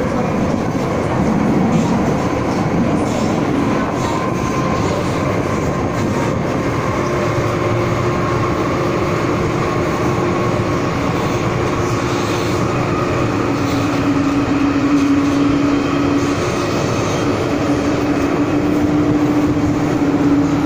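Running noise inside an MTR M-Train subway car in motion: a steady rumble and rattle of the train. About a third of the way in a steady tone comes up, which drops to a lower, stronger tone about halfway.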